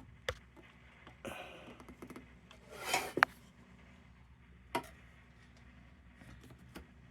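Small metal lantern parts being handled on a workbench: a few sharp clicks and light knocks, with two short scraping rubs, the loudest of them about three seconds in.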